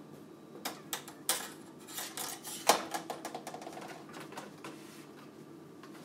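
A run of irregular small clicks, taps and rattles from hands handling a SATA data cable and a flashlight inside an open PC tower case. The loudest knock comes a little before three seconds in.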